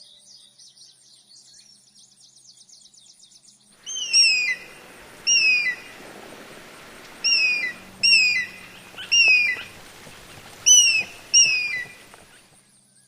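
A bird calling: faint high twittering at first, then from about four seconds in a series of loud, short, downward-slurred whistled notes, mostly in pairs.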